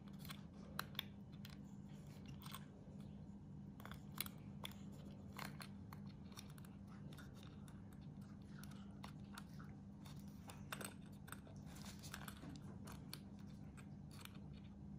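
Small scattered clicks and crackles of a metal screw eye being twisted by hand into a glued hole in a mask's jaw piece, over a faint steady hum.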